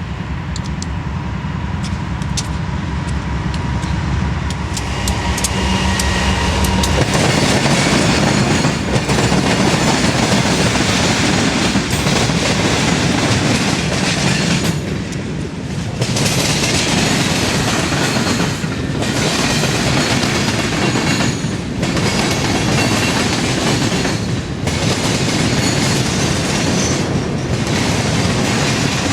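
Freight train passing: a low rumble for the first seven seconds, then a loud rush of freight cars rolling by with clattering wheels on the rails, dipping briefly every few seconds.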